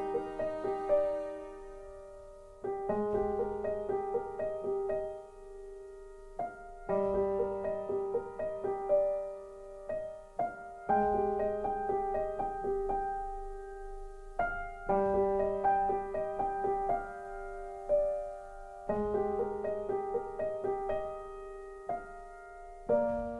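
Slow, calm piano music: gentle phrases of decaying notes begin about every four seconds over a held middle note.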